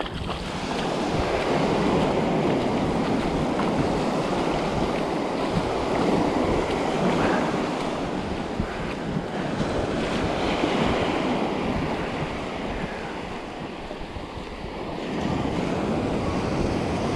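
Small waves washing up onto a sandy beach, the wash swelling and easing, with wind buffeting the microphone.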